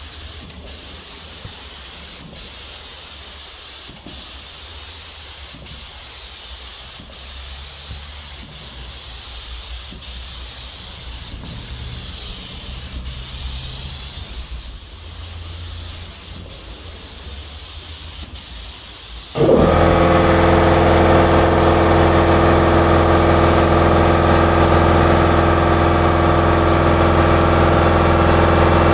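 Air spray gun hissing steadily as paint is sprayed onto a car's hood, with short breaks every second or two. About two-thirds of the way in, a loud, steady machine hum starts suddenly and runs on, as of an air compressor kicking in.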